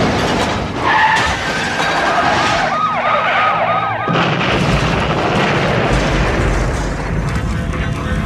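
Film soundtrack: a police siren wailing in quick rising-and-falling yelps, then about four seconds in a car explodes with a sudden blast. A low, steady rumble of the burning wreck follows.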